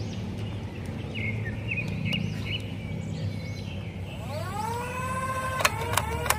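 Toy Kriss Vector blaster's electric motor whining up in pitch about four seconds in, then three sharp shots about a third of a second apart as it fires at plastic bowling pins.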